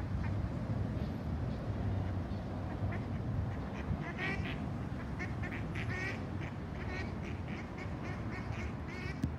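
Ducks quacking in runs of short calls, starting about three seconds in and going on to near the end, over a low steady rumble.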